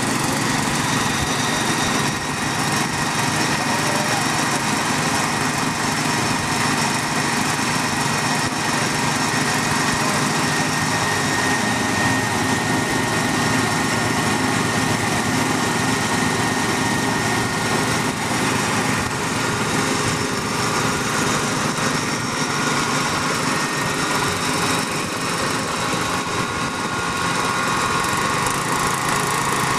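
Engine running steadily at a constant speed to power a three-point-hitch hydraulic water-well drilling rig during drilling.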